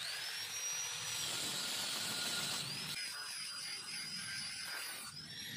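Angle grinder grinding a steel axe blank, throwing sparks. Its high whine rises as the disc spins up, drops and wavers under load about three seconds in, and climbs again near the end as the load comes off.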